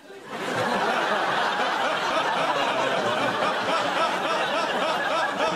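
Studio audience laughing: many voices together, building up quickly at the start and then carrying on steadily.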